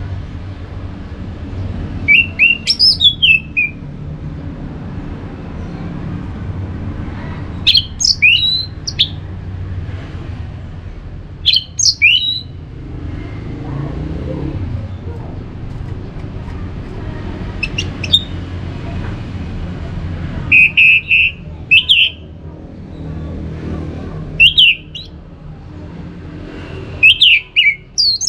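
Orange-headed thrush calling: short, loud, high phrases of a few quick notes, repeated every few seconds, over a steady low background rumble.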